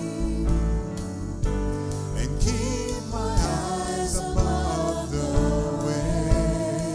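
Live church worship band playing a slow song: a voice singing over a Nord Stage 3 keyboard with bass and drums, with occasional cymbal hits.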